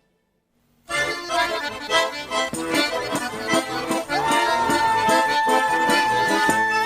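Accordion playing a lively folk dance tune that starts suddenly about a second in. From about the middle, one long high note is held over the rhythm.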